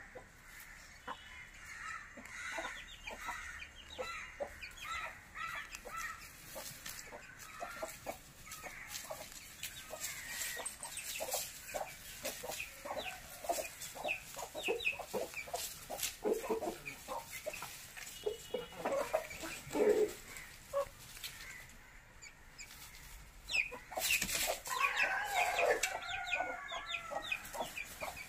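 Aseel chickens clucking in short repeated calls, with a denser, louder run of calls near the end.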